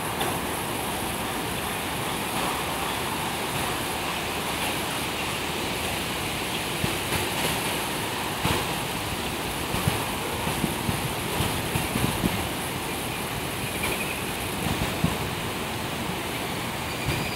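Steady outdoor evening ambience: a broad rushing hiss with a constant high-pitched drone, typical of summer insects calling at dusk. Low rumbles of wind on the microphone come and go in the second half.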